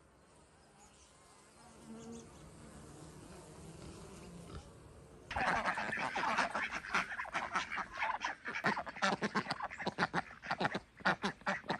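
A flock of ducks, Indian runner ducks among them, quacking and chattering in rapid, overlapping calls that start suddenly about five seconds in.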